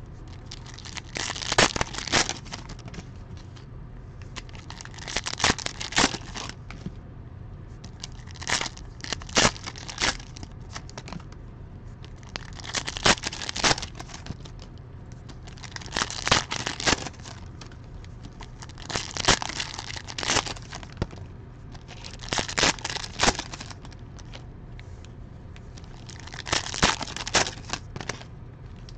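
Plastic wrappers of trading-card packs crinkling and tearing as packs are ripped open one after another. There are about eight bursts of crackle, one every three to four seconds.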